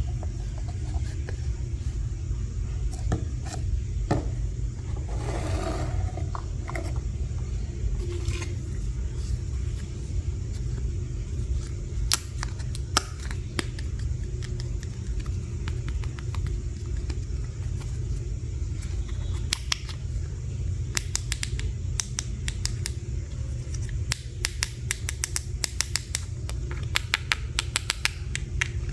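Small plastic toy pieces being unpacked and handled: scattered sharp clicks and taps, coming thick and fast near the end, with a short rustle early on, over a steady low rumble.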